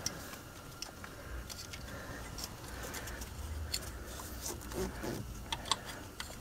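Scattered light clicks and rattles of an oxygen sensor's wire and plastic clip being worked onto a metal bracket by hand, over a low handling rumble.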